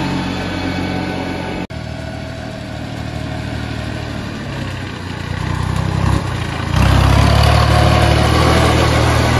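VST Mitsubishi Shakti compact tractor's diesel engine running steadily as the tractor drives along, cut off for an instant about two seconds in and louder again from about seven seconds.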